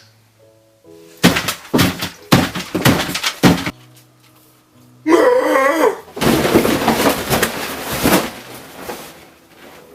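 A run of about six loud, sharp knocks or crunches, then a short wavering call, then a couple of seconds of dense noise, over soft background music.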